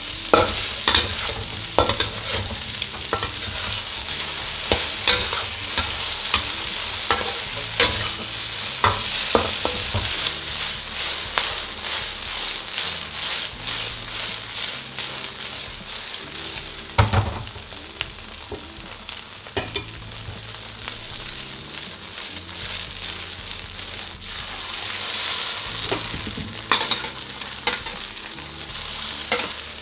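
Chicken and eggs sizzling in an oiled wok over a gas flame, with a metal wok spatula scraping and clanking against the pan many times. There is one loud clank about 17 seconds in. Near the end the wok is tossed, with a few more knocks.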